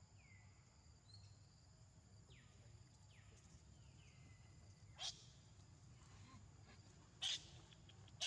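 Faint, high animal calls: a few falling whistles in the first half, then two short, sharp squeaks about five and seven seconds in, over a faint steady insect drone.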